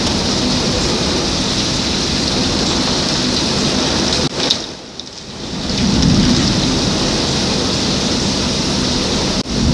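Heavy thunderstorm rain pouring with a steady dense hiss, and thunder rumbling. A little before halfway the sound drops away briefly, then swells back with a deeper rumble.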